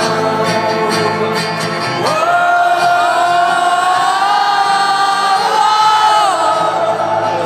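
Live rock band playing through a concert sound system, with a voice holding long sung notes that glide up and down between short breaths.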